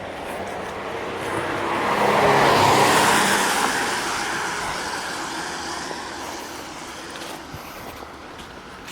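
A car passing by on the road, its engine and tyre noise swelling to a peak about three seconds in, then slowly fading away.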